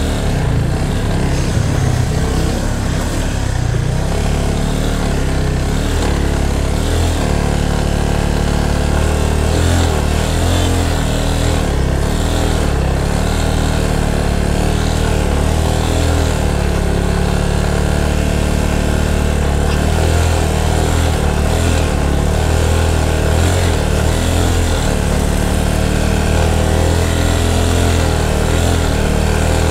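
Yamaha FZ25's single-cylinder engine running steadily under load at low speed as the motorcycle foot-pushes a stalled car, gathering speed slowly.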